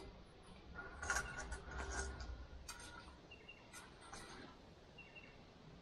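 Light metallic clinks and knocks of camp cooking gear being handled on a wooden bench, bunched in the first half, with a few more single clicks a little later. A bird chirps faintly every second or two.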